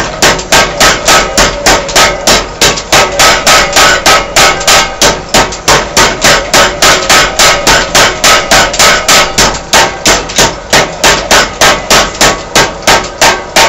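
Homemade junkyard power hammer pounding a red-hot steel bar, with steady, even blows at about three a second, each with a metallic ring.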